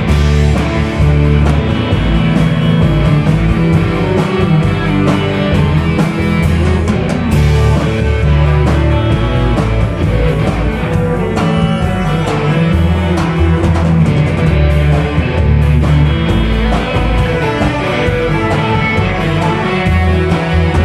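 Live rock band playing loudly: electric guitars over a driving drum beat and heavy bass.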